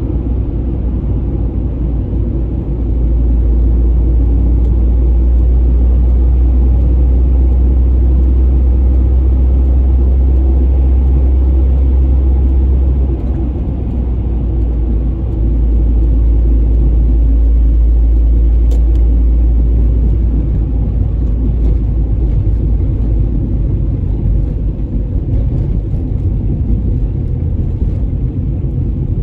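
Steady low rumble of a moving car heard from inside the cabin, mostly road and tyre noise, growing heavier for two long stretches of several seconds each.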